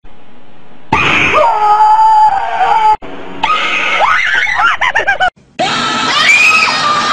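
Children screaming loudly in three short separate bursts, each one to two seconds long, broken off by abrupt cuts between them.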